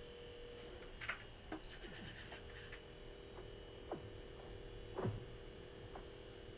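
Fishing line and tackle being handled while a tangled line is worked loose, with small clicks and scratches about one to three seconds in, over a steady hum. Several short sounds that drop sharply in pitch come through as well, the loudest about five seconds in.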